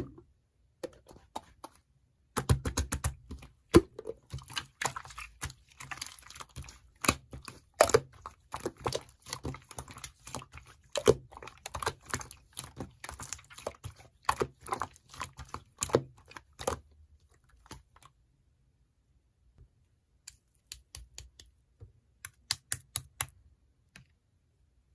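Rapid, irregular clicking and tapping, dense for about the first two-thirds, then stopping, with a short scattered run of clicks near the end.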